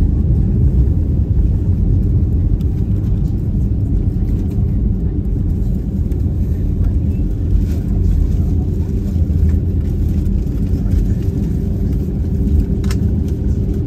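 Steady low rumble heard inside the cabin of an Airbus A320 rolling along the runway after touchdown. A steady hum grows stronger over the last few seconds.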